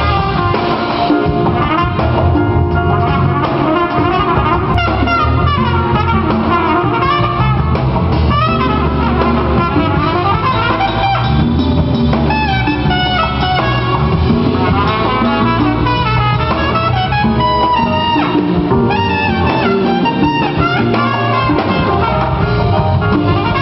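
Live jazz: a trumpet playing a lead line of quickly moving notes over electric bass and drum kit.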